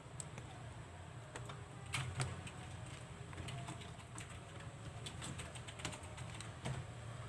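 Scattered light clicks and taps of small plastic and metal laptop parts being handled and fitted during reassembly, over a low steady hum.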